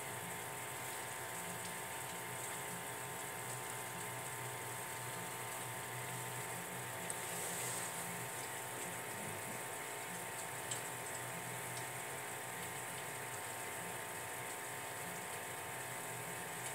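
A running aquarium: a steady hum with an even watery hiss from the tank's aeration, its fine air bubbles rising through the water. There is a faint click about seven seconds in, with a brief swell of hiss, and another near eleven seconds.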